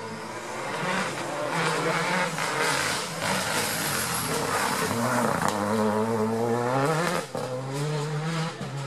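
Renault Clio rally car engine revving hard through a tight hairpin. Its pitch rises as it accelerates away and dips briefly at a gear change about seven seconds in.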